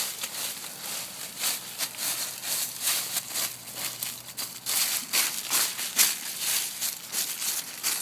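Dry fallen leaves rustling and crunching underfoot in quick, irregular scuffs as they are walked and kicked through.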